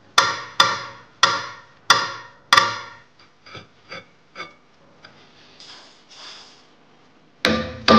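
Five sharp knocks, each with a short ring, about two-thirds of a second apart, then a few fainter taps and two soft rustles. Near the end a louder, faster run of rhythmic knocks begins.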